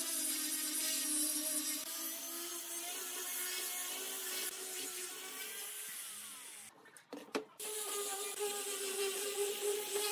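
Handheld angle grinder with a sanding disc running steadily against pine. A little past halfway the hum drops out briefly with a couple of clicks, then the grinder runs again at a slightly different steady pitch.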